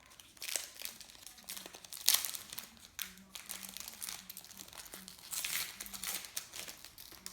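Plastic trading card packet wrapper crinkling and rustling as it is opened, in irregular bursts, loudest about two seconds in and again around five and a half seconds.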